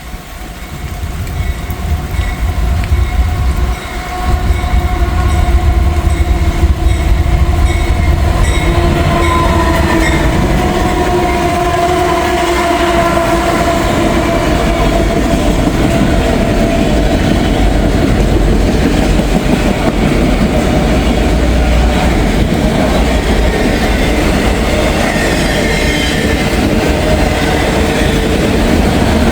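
Freight train passing close by: the sound builds over the first few seconds as the locomotives arrive, with a steady multi-note tone for several seconds, then the cars roll past at a loud, steady level.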